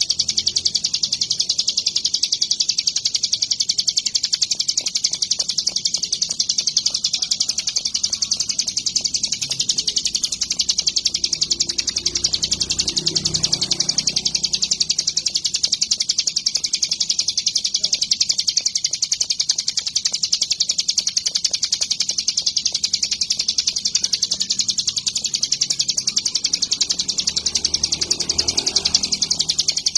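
Ciblek gunung songbird singing an unbroken, very fast run of high chirps that holds steady without pause.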